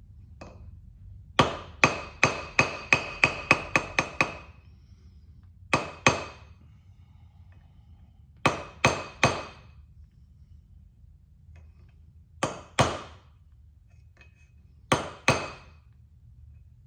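Small hammer peening the pins of a folding knife against an anvil, riveting the knife together: ringing metal taps, a quick run of about ten a little over a second in, then pairs and a triple of taps spaced a few seconds apart.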